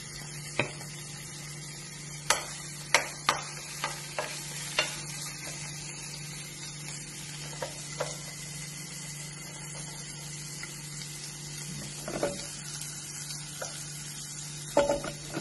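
Chopped onion, ginger and garlic sizzling steadily in hot oil in a nonstick frying pan, with a spatula now and then clicking and scraping against the pan as they are stirred.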